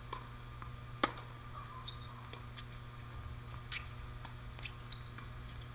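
Tennis rally on a hard court: one sharp racket strike on the ball about a second in, followed by several fainter hits and ball bounces.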